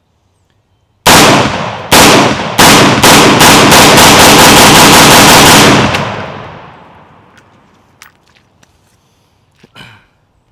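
Kel-Tec PLR-16 semi-automatic 5.56 pistol firing: three spaced shots, then a fast string of shots that stops suddenly, with a fading echo. The pistol cycles through the whole magazine without jamming, the new extractor working with this magazine.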